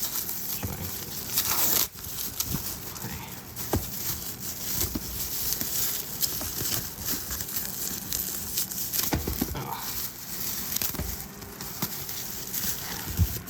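Plastic protective wrapping being crinkled and pulled off a die-cast model airplane, an irregular crackling rustle with many small clicks.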